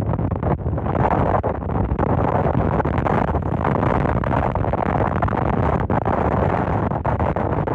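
Strong wind buffeting the microphone: a steady, loud rumble with brief dropouts.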